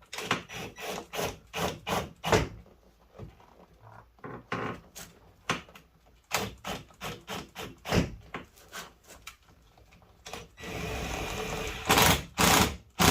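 Plastic interior door panel and its push-in clips knocking and clicking against the car door as they are worked into their holes. The knocks come at irregular intervals, with a rasping scrape of about a second near the end followed by two loud knocks.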